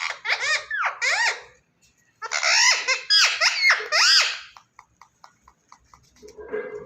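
Alexandrine parakeet calling in rapid bursts of short, arching squawks that rise and fall in pitch. After a pause of about two seconds with a few faint ticks, the calls start again near the end.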